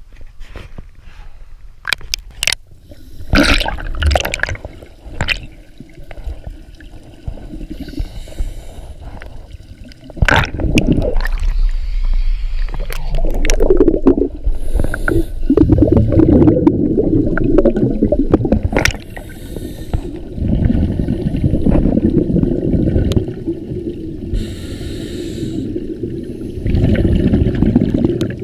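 Seawater sloshing and splashing against a camera at the surface, then, once it goes under about ten seconds in, a loud continuous underwater rumble. Through the rumble come gurgling bubble bursts every few seconds from scuba divers' regulators.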